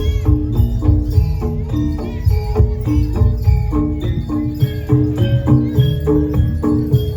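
Jaranan (kuda lumping) gamelan music: metal mallet instruments play a quick repeating melody of struck notes over steady, heavy drumming.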